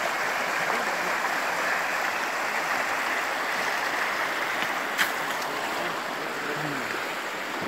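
Steady rush of a mountain stream, with a single sharp click about five seconds in.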